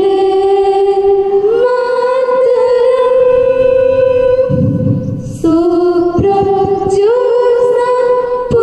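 Voices singing a slow song in long held notes, stepping up in pitch about a second and a half in and again near the end, with a brief break in the middle.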